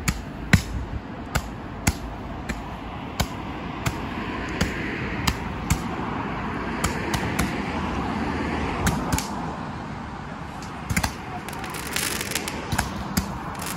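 Handheld Roman candles firing out over the water: a series of sharp pops, roughly one every half-second to second, over a steady rushing hiss. A quick cluster of crackling pops comes about eleven seconds in.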